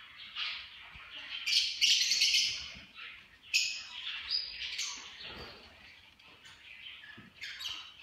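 Small caged pet birds chirping in high-pitched bursts, loudest about one and a half to three seconds in and again around three and a half seconds, with a shorter burst near the end.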